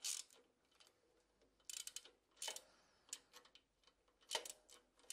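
Faint, scattered clicks and light metallic taps from small hand tools and parts as the ignition condenser is fastened to a screw on the engine: about six short clicks, unevenly spaced.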